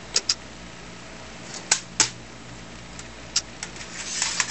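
Amiga 2000 computer rebooting: a handful of sharp mechanical clicks, some in close pairs, with a short rise of hiss near the end.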